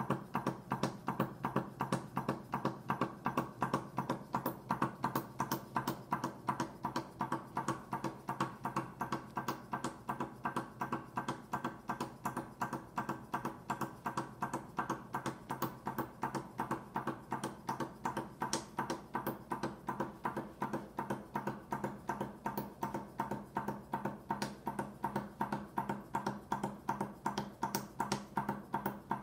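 A 45 mm Heinrici HM210 hot air engine running steadily, its crank and countercrank linkage clacking in an even rhythm of about four beats a second over a steady hum.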